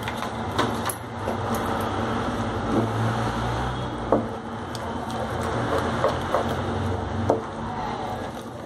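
Wooden spatula stirring and scraping a thick milk-powder paste around a heavy kadhai, with occasional sharp knocks of the spatula against the pan, while the lumps of milk powder are worked out. A steady low hum runs underneath.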